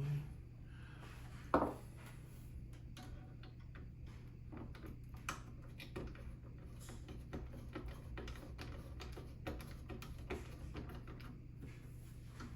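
Scattered small clicks and taps of computer parts and hardware being handled on a desk, with one sharper click about a second and a half in, over a steady low hum.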